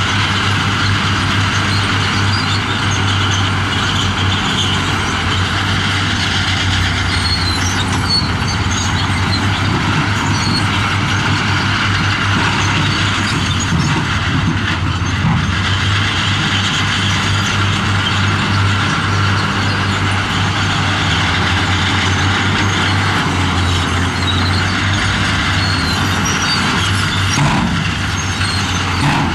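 Heavy diesel earthmoving machinery running steadily, a loud continuous engine drone with a rumbling noise over it.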